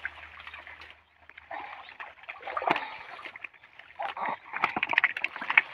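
Muddy water splashing and sloshing in irregular bursts as people wade and grope for fish in a pond drained by pumping. There is a brief lull about a second in, and the splashing is busiest toward the end.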